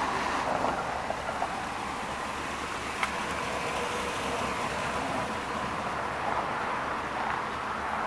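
Steady noise of motor vehicles, with a faint click about three seconds in.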